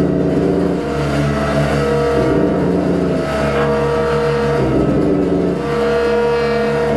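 Improvising ensemble playing dense, layered held tones over a low drone, the pitches shifting every second or so.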